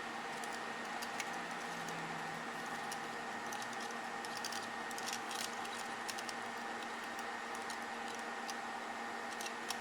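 Scattered light clicks and taps, like small plastic parts being handled, over a steady mechanical hum.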